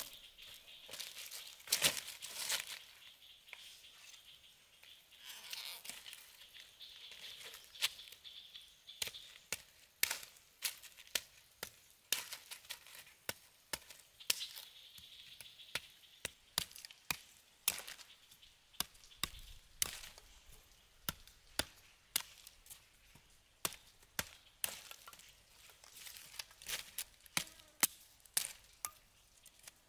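Repeated chopping strikes with a blade, irregular, about one or two a second, with a faint steady high-pitched hum coming and going behind them.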